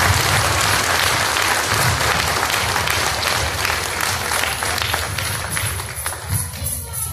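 Theatre audience applauding, a dense clapping that thins and dies away over the last second or so.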